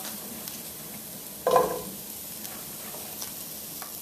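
Onion, garlic and curry spices sizzling steadily in a hot sauté pan as raw cauliflower florets are dropped in by hand, with a few light taps as pieces land. There is a brief louder sound about halfway through.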